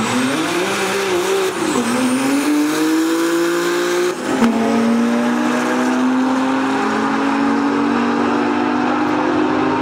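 Big-turbo Dodge Stealth's 3.0-litre V6, running a Borg Warner S380 turbo on 23 psi of boost, at full throttle on a drag-strip launch and pass. The engine note climbs, drops with an upshift about a second and a half in and again about four seconds in, then holds high and climbs slowly as the car pulls away.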